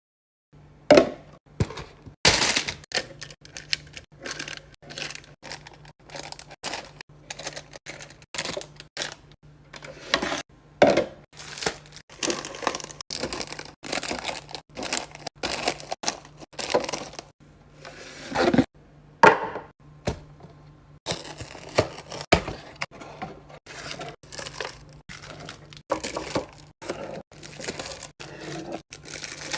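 Packaging and containers being handled: a dense, irregular run of sharp clicks, taps and plastic crinkles as food items are unpacked and set into place, over a faint steady low hum.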